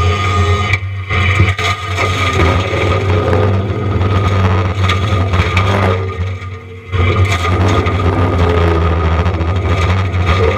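John Deere 333E compact track loader running a Diamond Mower forestry mulching head: a steady low machine hum with rough noise over it, easing off briefly about six seconds in and then coming back up to full.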